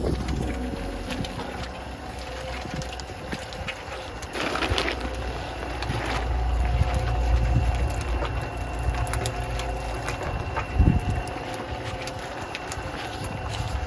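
Portable concrete mixer running steadily, its drum turning with a low rumble, with a few knocks and one louder knock about eleven seconds in.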